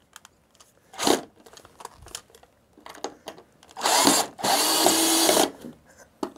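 Cordless drill backing screws out of a wooden support: a short knock about a second in, then two runs of the drill motor, a brief one about four seconds in and a longer steady one right after it.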